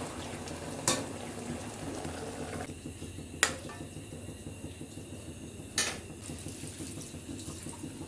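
Kitchen cooking sounds: a steady watery bubbling hiss with three sharp clinks of utensils on pots or dishes, a couple of seconds apart.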